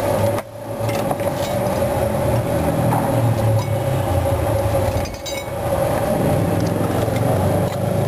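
Steady mechanical hum with a constant whine, and light clinks of a metal spoon against bowls as food is dished out. The sound drops out briefly twice.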